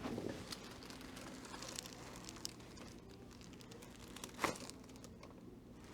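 Faint rustling and crinkling from movement on a chiropractic treatment table, with one brief louder rustle about four and a half seconds in, over a low steady hum.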